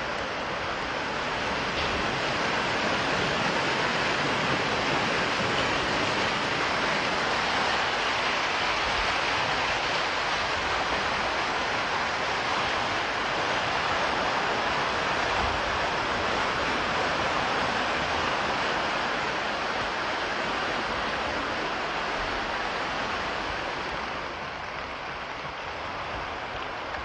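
Floodwater from the overflowing Kwisa river rushing through a town street: a steady, loud rushing of fast-moving water that eases slightly near the end.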